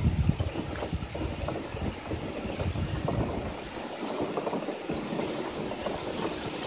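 Wind buffeting the microphone in irregular gusts over a steady hiss from loose, broken-up ice crystals shifting on the lake surface.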